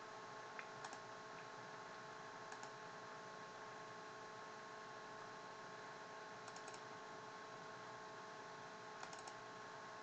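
Faint computer mouse clicks, a few single ones and two quick runs of three, over a steady electrical hum and hiss.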